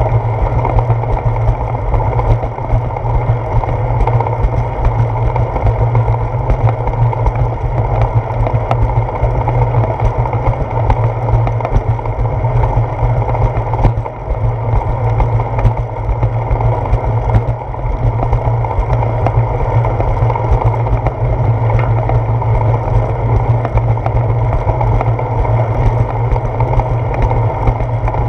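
Steady heavy rumble of wind buffeting a handlebar-mounted GoPro Hero 4 on a moving bicycle, mixed with tyre noise on a concrete path, with light ticks throughout.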